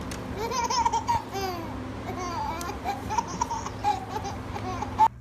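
A small child babbling and laughing in short, rising-and-falling bursts over a steady low hum, which cuts off abruptly near the end.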